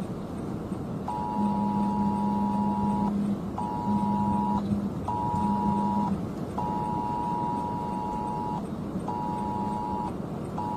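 Wireless Emergency Alert on a phone: a two-tone attention signal sounding in its cadence of one long tone and two short ones, repeating, while the phone's vibration buzzes along with the first few tones. Steady vehicle noise runs underneath.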